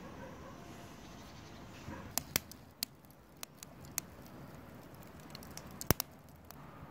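Firewood burning in the firebox of a kazan stove, crackling: irregular sharp pops starting about two seconds in, the loudest near the end, over a low steady rustle.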